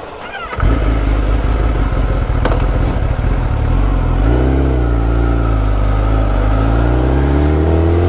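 Loud motor-vehicle engine at close range, coming in suddenly about half a second in and running steadily, its pitch rising over the last couple of seconds as it accelerates.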